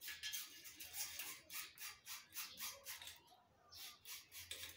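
Steel brake cable being pulled through its greased outer housing: a faint rhythmic rasping of about five strokes a second, which pauses about three seconds in and then goes on with a few more strokes.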